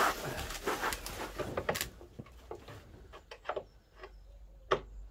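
Irregular light clicks and knocks of a hand tool working at a van's plastic front grille, working on seized screws behind it.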